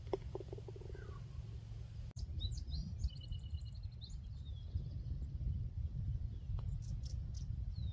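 A mallet putter with a hard milled face strikes a golf ball with a single sharp click near the start. Songbirds chirp and trill throughout over a low steady rumble.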